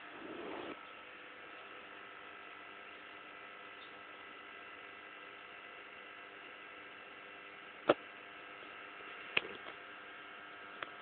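Steady low electrical hum, with a brief soft low sound at the very start and three short sharp clicks in the last few seconds, the first of them the loudest.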